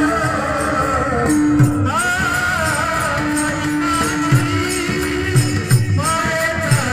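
A man sings a Marathi devotional kirtan song in long, ornamented held notes, over instrumental accompaniment with a steady drone, low drum strokes and jingling percussion.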